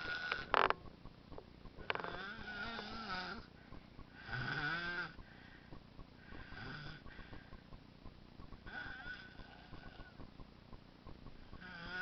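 Baby snoring in slow, regular breaths, about one snore every two seconds, each lasting about a second with a wavering pitch. A sharp click about half a second in.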